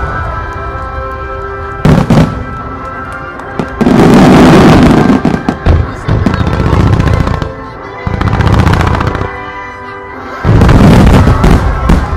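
Fireworks display: repeated waves of loud booms and crackling from bursting aerial shells and rising ground volleys, heaviest about four to six seconds in and again near the end. Steady music plays underneath.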